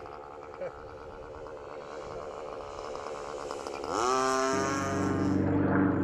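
Radio-controlled model Cub airplane flying overhead, its motor and propeller drone wavering in pitch. About four seconds in the pitch drops sharply, then a louder, lower, steadier drone follows.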